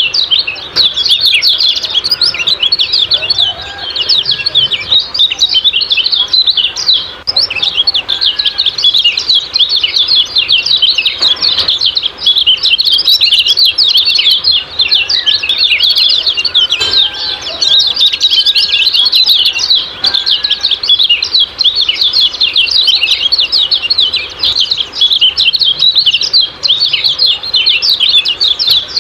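Kecial kuning bird giving rapid, unbroken 'ciak-ciak' chirping calls, high-pitched and densely packed with no pauses. This is a masteran recording, meant to set caged birds singing.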